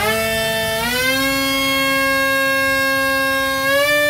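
Brushless electric motor and rear pusher propeller of a foam F22 RC plane running up on the bench, a steady whine that steps up in pitch about a second in and again near the end as the throttle is raised.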